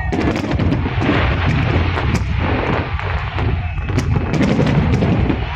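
Large fireworks display going off in rapid succession: a continuous low rumble of shell bursts with many sharp cracks and bangs on top.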